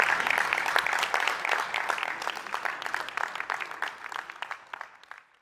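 Audience applause, thinning out and fading away, with a few last scattered claps near the end.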